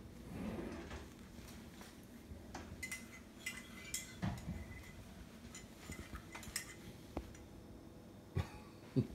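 Scattered light clinks and knocks of dishes and cutlery being handled, a few separate strikes with a louder knock near the end.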